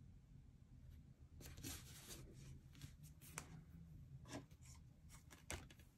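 Faint rustling and soft scrapes of cardstock being pressed down and moved by hand on a desk, with a few light ticks between quiet gaps.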